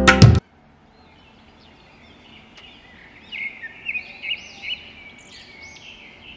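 Acoustic guitar music cuts off sharply half a second in, then a small bird chirps over faint background noise, a string of quick up-and-down chirps in short bouts.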